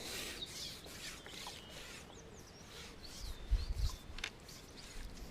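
Faint outdoor ambience with scattered bird chirps, and a few soft low knocks and a sharp click past the middle.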